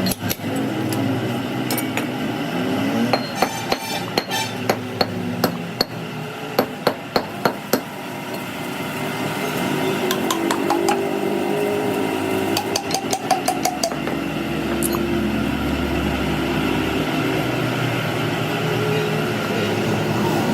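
Hammer striking metal in a series of sharp blows, about ten spread over several seconds, then a quicker cluster of lighter taps about two-thirds of the way through, over steady workshop background noise.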